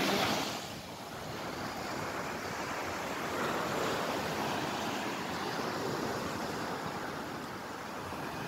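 Ocean surf washing on the shore, a steady rushing noise that swells and eases slowly, with some wind on the microphone.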